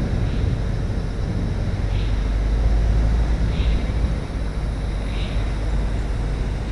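A vehicle driving along a road: a steady low rumble of engine and road noise.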